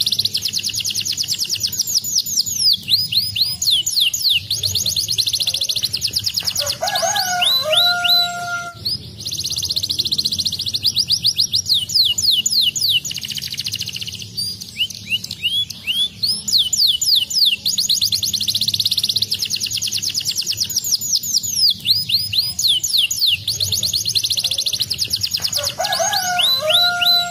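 Domestic canary singing long, rapid trills of fast falling chirps, with two short passages of lower whistled notes, about seven seconds in and near the end, over a faint steady low hum.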